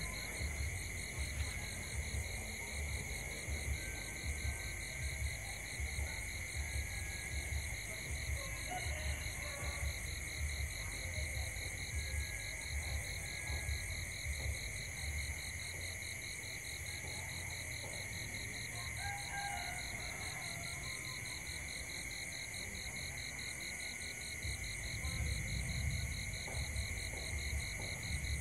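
Night chorus of insects: several steady, fast-pulsing trills at different pitches sounding together, over an uneven low rumble that eases off past the middle and swells again near the end.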